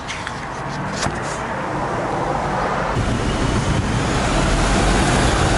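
Road traffic noise from a motor vehicle, a steady rumble that grows louder, heavier in the low end from about three seconds in, as the vehicle approaches. A couple of sharp clicks in the first second.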